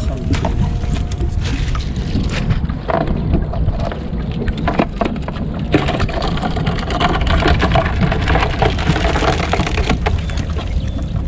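Crab gill net being hauled by hand over the side of a small boat: irregular knocks, clicks and rustles of the wet net against the hull, over a steady rumble of wind on the microphone.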